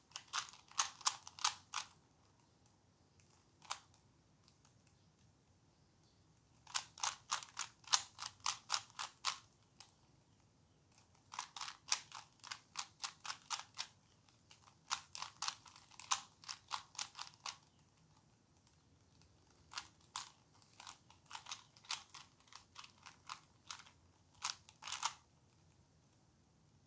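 Plastic Rubik's Cube being solved by hand: its layers are turned with quick clicking snaps, several a second, in runs of a few seconds with quiet pauses between them.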